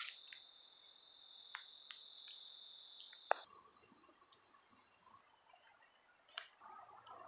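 Insect chorus, a steady high-pitched drone that cuts off abruptly about three and a half seconds in. Fainter high insect trills follow, with a few light clicks.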